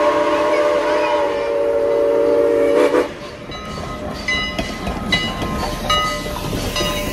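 Steam whistle of Canadian National 89, a 2-6-0 steam locomotive, sounding one long chord of several tones that cuts off about three seconds in. The locomotive then passes close, its running gear and steam making a rumbling, knocking noise with short high ringing tones.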